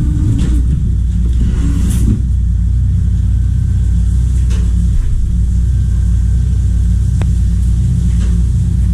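Steady low drone of a shrimp trawler's diesel engine and deck machinery running, with a few faint knocks.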